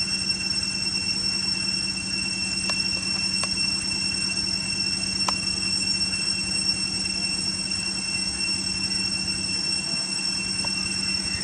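A steady high-pitched whine held on two tones, one an octave above the other, over a low steady hum, with a few faint ticks.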